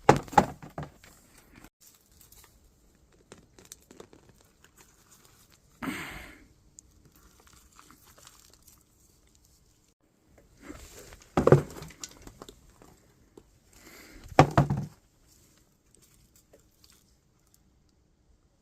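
Hands digging and rummaging through the soil of a potato planter, rustling and scraping in several short bursts.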